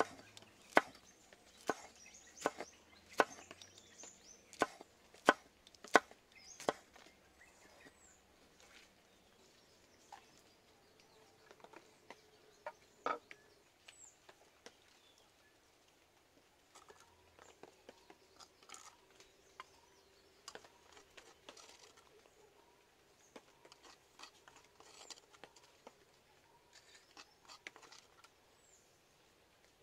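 Large kitchen knife chopping green chillies and shallots on a wooden board, a sharp chop roughly every three-quarters of a second for the first seven seconds. After that only faint scattered taps and handling knocks, with one louder knock about halfway through.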